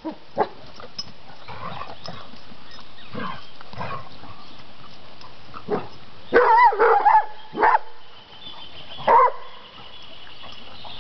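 A dog barking and yelping in play: a quick run of several pitched yelping barks a little past the middle, then two single barks about a second and a half apart.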